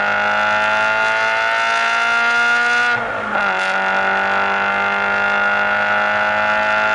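Toyota GT86's 2.0-litre flat-four boxer engine, fitted with a Tomei equal-length exhaust manifold and a Cosworth 3-inch cat-back exhaust, heard at the tailpipe pulling under acceleration. Its note rises slowly, drops at a gear change about three seconds in, then climbs again.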